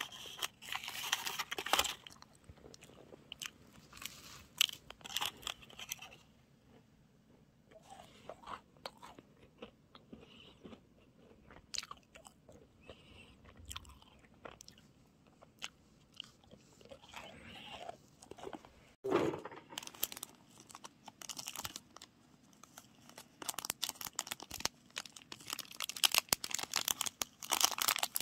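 Close-up eating of a macaron: bites with a light crunch of the shell, then quieter chewing with scattered small crackles. Near the end come denser crackling and rustling noises.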